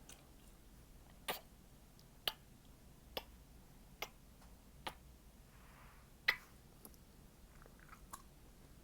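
Gum being chewed with sharp, loud pops, about one a second: six strong snaps, the loudest about two-thirds of the way in, then a few fainter clicks.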